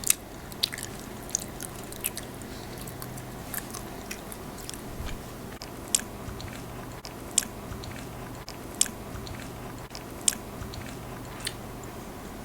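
Close-up chewing and biting of a muffin topped with crunchy almonds, with sharp crunches every second or so. A faint steady low hum runs underneath.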